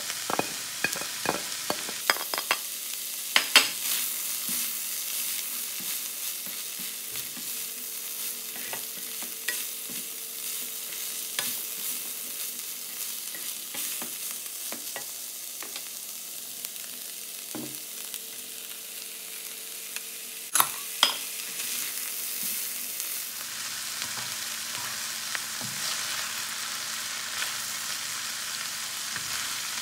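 Samosa filling of shredded chicken, peas and fried potato cubes sizzling in a nonstick wok while a spatula stirs and scrapes through it. A clatter of spatula knocks in the first few seconds as the potato cubes go in, two sharper knocks about twenty seconds in, and the sizzle gets louder for the last several seconds.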